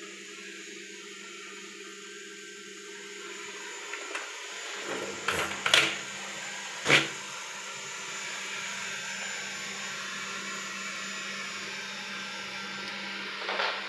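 Robot vacuum mop running with a steady motor hum and hiss, with a few sharp knocks about five to seven seconds in and another near the end.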